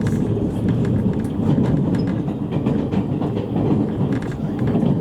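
Running noise heard inside a JR East E653 series electric train car on the move: a steady low rumble from wheels and track.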